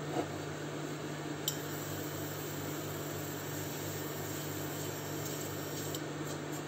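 Silicone spatula stirring and scraping dry ground spices around a nonstick frying pan, with two light taps against the pan in the first couple of seconds, over a steady low hum.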